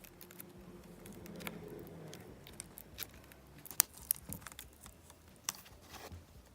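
Hands working thinking putty, kneading and pulling it, with scattered small sticky clicks and pops and one sharper click a little after the middle.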